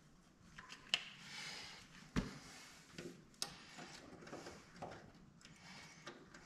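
Snap-ring pliers and a snap ring being worked at a mower gearbox's blade shaft: faint scattered metal clicks and taps, with a few sharper clicks.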